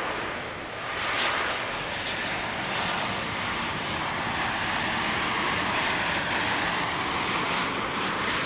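Jet engines of a Boeing 737 airliner flying low on final approach with its gear down: a steady rushing noise with a thin, high whine held over it.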